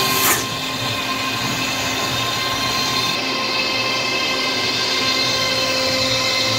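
CNC router spindle and a dust extractor running together: a steady whine of several tones over a rushing hiss, with a brief sharp knock about a third of a second in.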